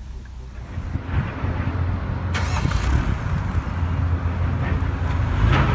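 2016 MINI Cooper Countryman's four-cylinder engine idling, heard at the exhaust as a steady low rumble that gets louder about a second in. A single sharp click comes partway through.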